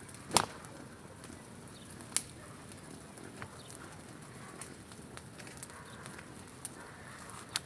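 Bonfire crackling: a few sharp pops, the loudest about half a second in and another about two seconds in, over a faint steady hiss.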